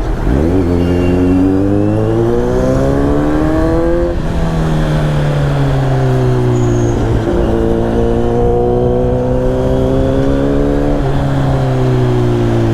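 Kawasaki Z900 inline-four running through a LeoVince aftermarket exhaust, pulling up through the revs under acceleration. The pitch drops sharply at an upshift about four seconds in, climbs again, and drops at another upshift near the end.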